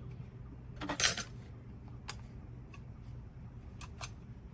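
Metal reciprocating-saw blades clinking as they are handled, with one louder clatter about a second in and a few lighter clicks after it.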